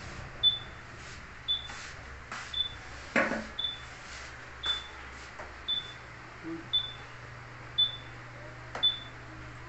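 A short, high electronic beep repeating about once a second, from the motorcycle's remote alarm system. A steady low hum runs underneath, with a few clicks and a louder rattle of handled parts about three seconds in.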